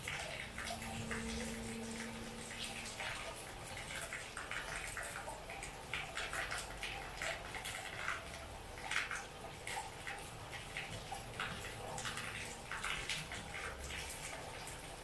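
Heavy rain falling steadily, with irregular splashing drips of water close by.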